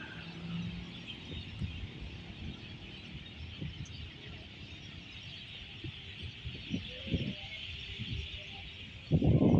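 A steady, dense chorus of high chirping from the trees, with soft irregular low thumps under it. A much louder low rumble starts near the end.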